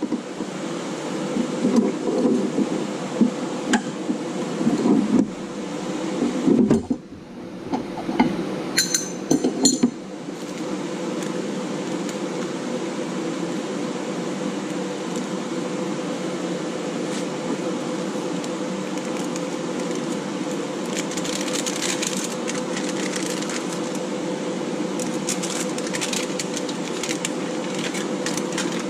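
Metal handling clatter as a bench clamp is loosened and steel plates are shifted, with a few sharp clinks near ten seconds, over a steady machine hum like a cooling fan. Near the end there is faint crinkling of aluminum foil as the welded pouch is handled.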